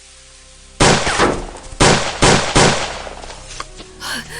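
Four gunshots: one about a second in, then three in quick succession about a second later, each with a short decaying tail.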